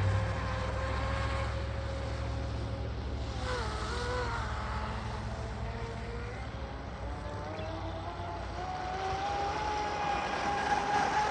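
Pro Boat Blackjack 42 RC catamaran's brushless electric motor whining as the boat runs at speed, the pitch wavering with the throttle. The whine dips about four seconds in and climbs again near the end.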